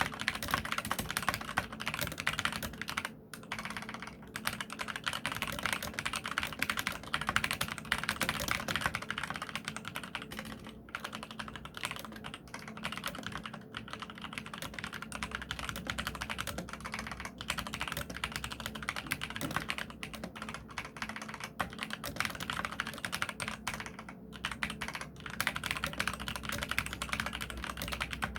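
Fast continuous typing on a mechanical keyboard with Kailh red linear switches, keys clacking rapidly with a few brief pauses.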